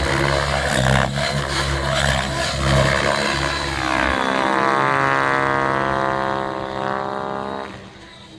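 Align T-Rex 700E electric RC helicopter in flight: loud rotor and motor noise that changes character about halfway through, then drops away sharply near the end as the helicopter climbs far overhead.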